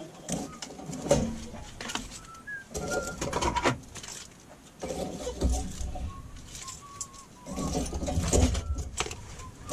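Metal tongs clicking and scraping against a stovetop grill grate and a paper plate as grilled shrimp and broccoli are lifted off, with short bird calls in the background.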